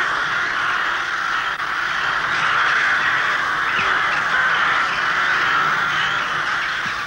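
A large flock of birds calling all at once, a dense, continuous clamour of many overlapping cries.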